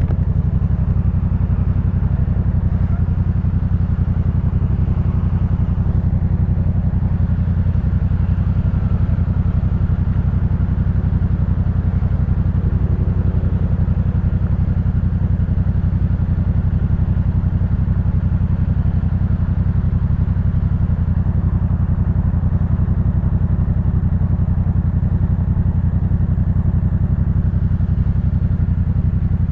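Yamaha MT-07's parallel-twin engine running at a steady speed through a Jeskap K4 full aftermarket exhaust: an even, low exhaust note with no revving.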